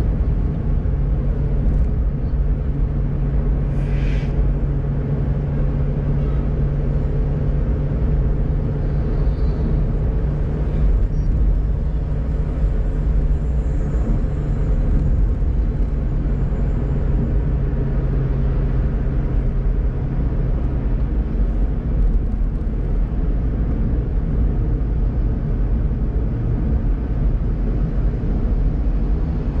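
Steady engine and road rumble from a car driving along a highway, with a brief sharp sound about four seconds in.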